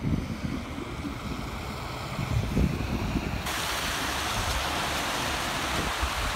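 Rain and wind noise on a phone's microphone: a steady hiss with low rumbling. About halfway through, the hiss suddenly grows louder and brighter.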